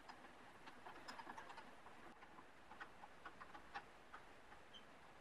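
Faint, irregular small clicks and ticks in near silence, in a few loose clusters.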